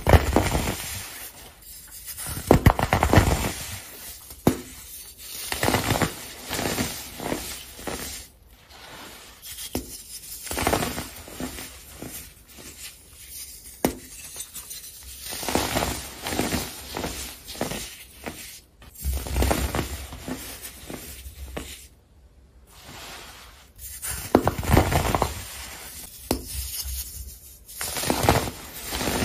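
Molded blocks of baked baking soda crunching and crumbling as they are squeezed and broken apart by hand, in clusters of crackly crushing with short pauses between squeezes.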